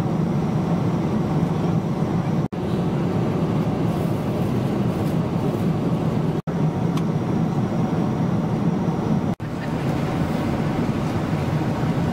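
Steady cabin noise of a Boeing 777-300ER in cruise: the hum and rush of its GE90-115B engines and airflow, heard from inside the economy cabin. The sound drops out briefly three times, at about 2.5, 6.5 and 9.5 seconds.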